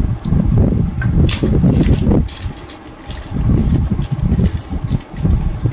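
Handling noise from opening the sewing machine's plastic accessory tool box and rummaging in it: uneven low knocking and rubbing with a few sharp clicks.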